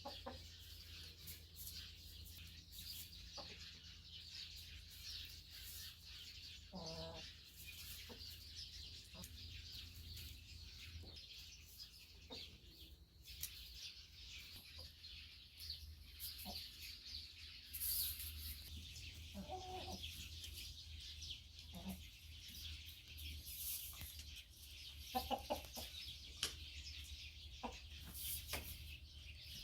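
Korean black-boned chickens clucking a few times, with short calls spaced out over the half-minute, against a steady high background hiss and scattered small ticks.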